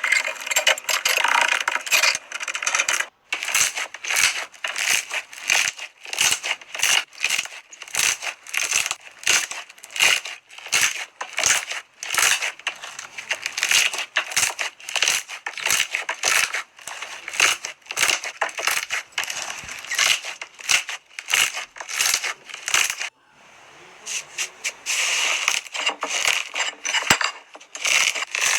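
Slime being squeezed and pressed by hand, making a run of sharp crackles and pops about two a second, with a brief break about 23 seconds in before denser crackling resumes.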